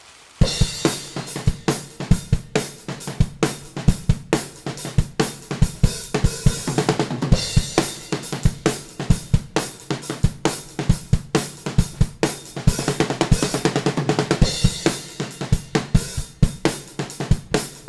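Drum kit playing a fast, driving rhythm of kick, snare and cymbals, starting suddenly about half a second in.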